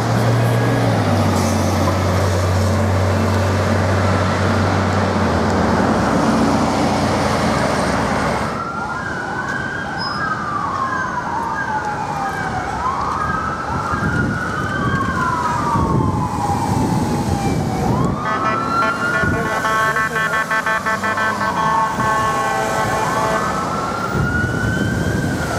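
Street traffic with a city bus engine running low for the first several seconds. Then an emergency vehicle's electronic siren starts with a few fast yelps and goes on with slow rising-and-falling wails. A second, pulsing siren tone overlaps the wail for the last several seconds.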